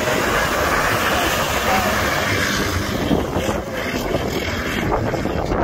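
Nissan Patrol SUVs with swapped Toyota UZ-series V8 engines driving hard under load, wheels churning through wet salt-flat mud, mixed with heavy wind buffeting on the microphone.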